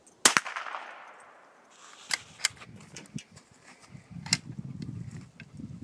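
A .22 Savage Cub bolt-action rifle fires one shot, sharp and loud, with a short echo trailing off over the next second. Then a few metallic clicks follow as the bolt is worked.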